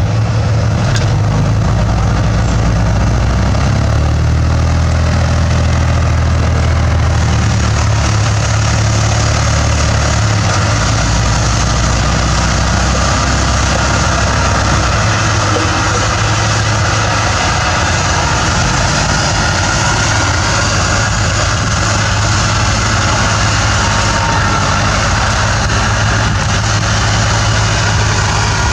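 Bulldozer's diesel engine running steadily while working soil, a loud low drone whose low note shifts a few times.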